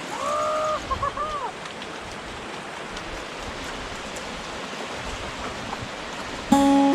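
Steady rushing of creek water, with two short rising-and-falling cries in the first second and a half. Music comes in near the end.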